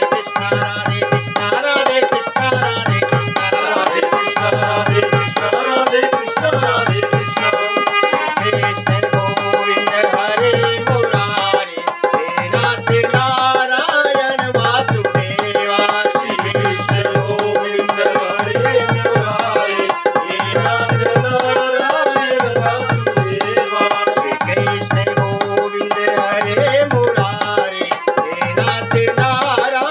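Krishna bhajan sung by men's voices to tabla and percussion, with a low drum beat about every two seconds.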